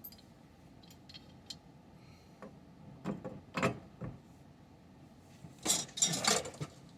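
Metal tools and pipe fittings clinking and clanking as they are handled: a few light clicks, a couple of knocks midway, and a louder clatter near the end.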